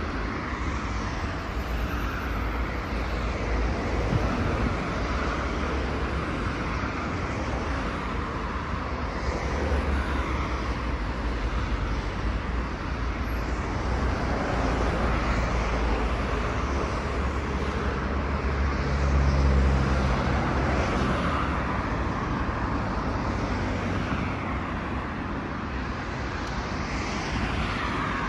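Steady city road traffic: a continuous wash of passing cars' engines and tyres. One vehicle passes louder, with a low engine hum, about twenty seconds in.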